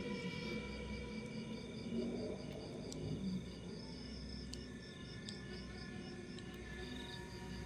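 Crickets chirping in an even, pulsing rhythm, about three chirps a second, over a faint steady hum of high tones.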